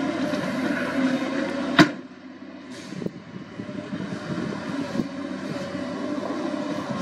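Wheel loader's diesel engine working under load as it pushes a heap of earth and rock with its bucket. A single sharp knock about two seconds in, after which the engine sound drops lower.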